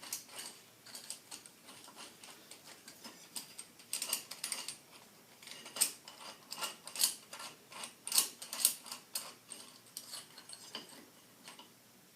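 Irregular light metallic clicks and clinks from the steel pieces of a Harbor Freight pulley puller kit and hand tools being handled.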